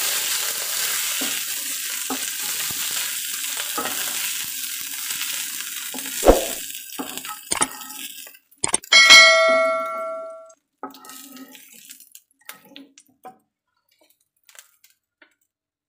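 Hot oil sizzling in a frying pan as fried mint leaves are stirred and scooped out with a wooden spatula, with scraping and knocks against the pan; the sizzle stops about seven seconds in. About nine seconds in, a bright chime sound effect rings for about a second and a half, followed by a few faint taps.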